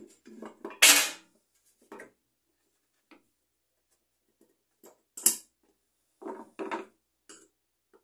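Handling noise of a microwave turntable motor being fitted into the oven's sheet-metal base, with a screwdriver brought to it. Scattered light clicks and knocks, with two sharp scraping clatters, one about a second in and one a little after five seconds.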